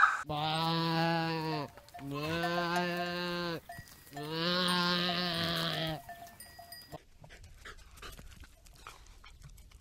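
Sheep bleating: three long bleats, each about a second and a half, with a wavering quaver.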